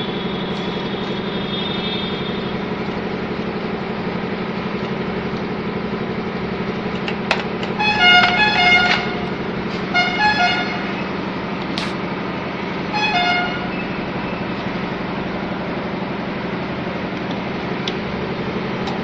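Steady low hum, with short horn toots about 8, 10 and 13 seconds in.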